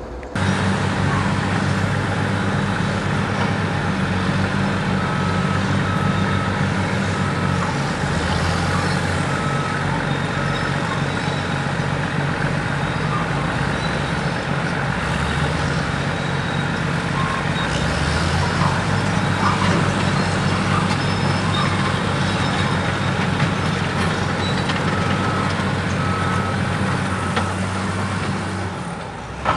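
Heavy diesel machinery running loud and close, its engine note shifting now and then as it works. A reversing alarm beeps in short runs a few times.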